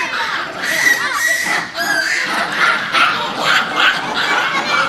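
A troop of Japanese macaques screaming during a fight: many shrill, overlapping calls that rise and fall in pitch, one after another.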